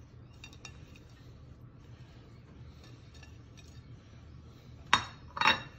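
A china plate clinking twice, about half a second apart near the end, as it knocks against a ceramic dish. Before that come a few faint soft ticks of sliced jalapeños being dropped onto the salad.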